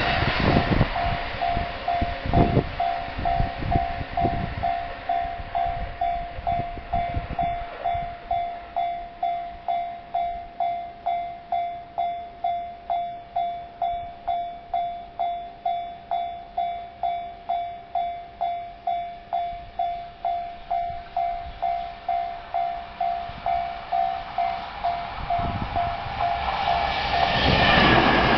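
Japanese level-crossing warning bell clanging steadily, about two strikes a second. During the first few seconds the tail of a JR East E231 series electric train passes with rumble and wheel clatter. Near the end an EF210 electric locomotive with its freight train rumbles in, louder as it reaches the crossing.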